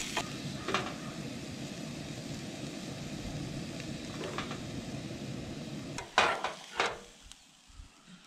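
Turkey taco meat sizzling in a frying pan on a propane camp stove. About six seconds in, two sharp scrapes of the spatula as the meat is scooped out, after which the sizzle drops away.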